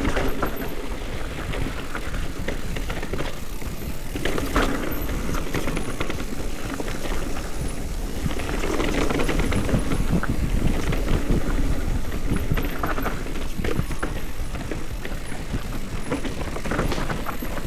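Specialized Turbo Levo electric mountain bike rolling down a rough dirt trail: tyres crunching over dirt and rocks, with constant irregular rattling and knocking from the bike and a steady low wind rumble on the microphone.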